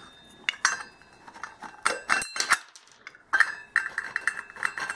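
Metal outboard water pump parts clinking and clicking as they are handled and fitted over the drive shaft, a few separate knocks at first, then a quick run of ringing clicks over the last second and a half or so.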